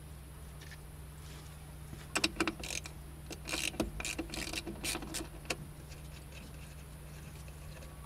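Small clicks and rattles, from about two seconds in to about five and a half, as hands work loose the BMW E36's plastic air filter box in the engine bay. A faint steady low hum lies underneath.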